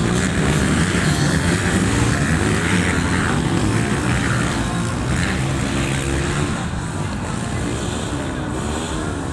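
Motocross dirt bike engines racing around the track, their pitch rising and falling over and over as the throttle is opened and closed.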